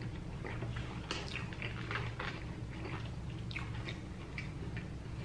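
Close-up chewing of a mouthful of food: irregular wet clicks and crisp crunches, several a second, over a steady low hum.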